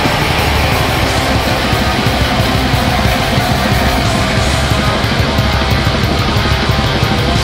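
Black metal music: distorted guitars and drums in a loud, dense wall of sound that never lets up.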